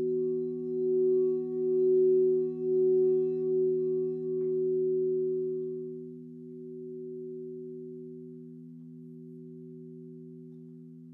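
Crystal singing bowls, tuned in fifths and fourths, ringing together in steady low tones. One bowl swells and pulses in volume as it is played, then dies away slowly from about halfway through.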